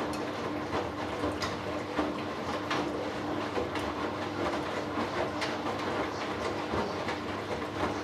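Hoover Dynamic Next washing machine in its final spin, the drum turning at a steady speed with a constant hum and rumble. Irregular light clicks and ticks come through every half second or so.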